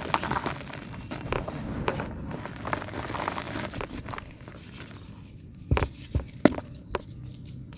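A hard, dry chunk of homemade yellow dirt crumbling between the fingers: a gritty crackling for about five seconds, then a few sharp snaps as hard pieces break off.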